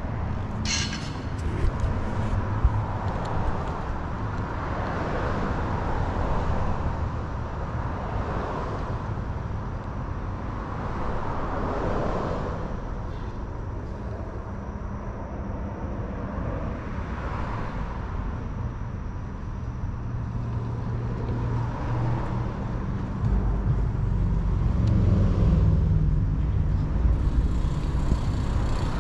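Road traffic crossing a bridge overhead: a steady low rumble, with passing vehicles swelling and fading every few seconds and a heavier low drone building near the end.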